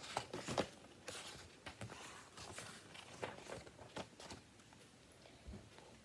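Faint rustling and soft scattered taps of a thin paperback picture book being handled, its pages turned and flipped.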